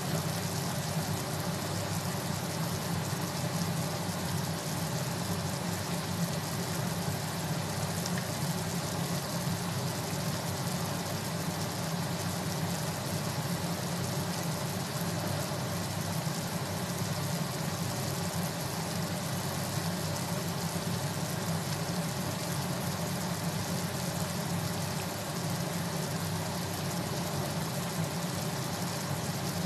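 Steady low hum with an even hiss over it, unchanging throughout, in a kitchen where a pot of chicken adobo simmers on a low flame.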